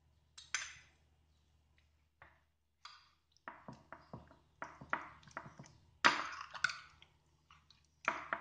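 A metal spoon clinking and scraping against a glass baking dish while stirring raw chicken pieces through a wet yogurt marinade: irregular clinks, with a couple of longer scraping sounds near the end.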